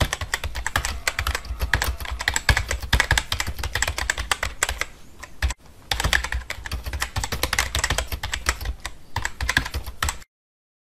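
Rapid computer-keyboard typing clicks, a sound effect keeping time with text being typed onto the screen. There is a short break about halfway through, and it cuts off abruptly near the end.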